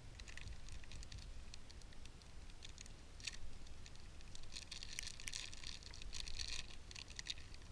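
Plastic snack-bar wrapper crinkling and crackling as it is opened by hand, in quick irregular crackles that grow densest in the second half.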